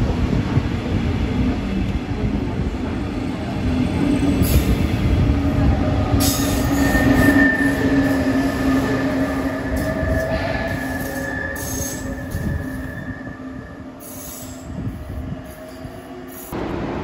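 DB Regio double-deck regional train running along the platform: wheels rumbling on the rails, with a steady high wheel squeal that starts about six seconds in and fades by about fourteen seconds. Near the end the sound cuts abruptly to a quieter, steady background.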